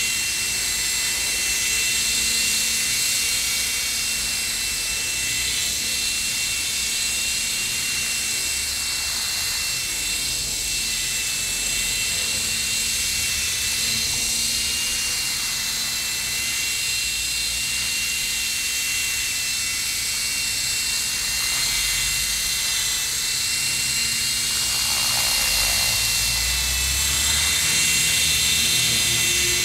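Electric radio-controlled model helicopter, a Falcon 3D with an Acer labs motor and ESC, hovering low: a steady high motor whine over the whir of the rotor blades. The pitch wavers slightly and it grows a little louder near the end.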